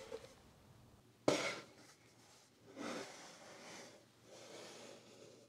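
A single sharp knock about a second in, then several soft rustling, sliding sounds as stacked paper signatures and pressing boards are handled and set into a book press.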